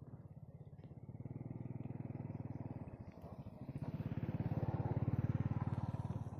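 A small engine running with a fast, even beat, growing louder about a second in, dipping briefly, then louder still from about four seconds in before easing off near the end.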